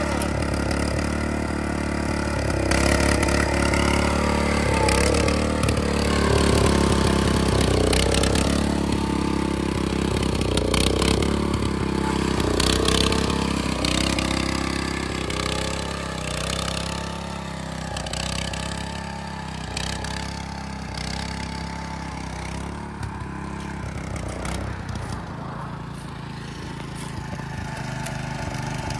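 Small single-cylinder gasoline engine of a walk-behind rotary tiller running under load as its tines dig into the soil, its pitch wavering up and down with the load. It grows somewhat quieter about halfway through.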